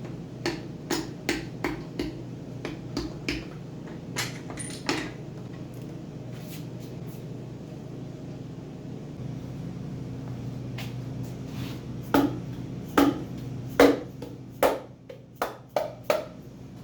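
Sharp metallic taps and knocks on engine parts during a teardown: a run of single knocks in the first five seconds, then a louder cluster of knocks later on. A steady low hum runs underneath.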